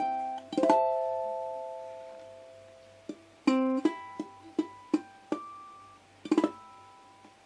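ACE D65 all-solid mahogany tenor ukulele played solo: plucked notes and chords. About a second in, one chord is left to ring and fade over about two seconds before the playing picks up again.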